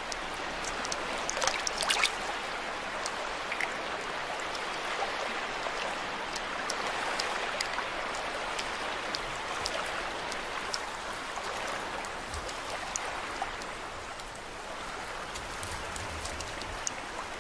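Shallow swamp water trickling and lapping steadily, with scattered small clicks and splashes, most of them in the first couple of seconds.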